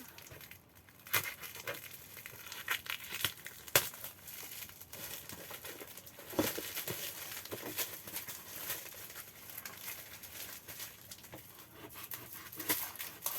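Package wrapping being crinkled and torn open by hand: an irregular run of crackles and sharp rips, starting about a second in.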